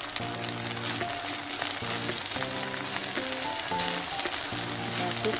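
Water spinach frying in a hot wok with garlic, onion and tauco, sizzling steadily and turned with a wooden spatula, with small ticks and crackles. Background music plays along.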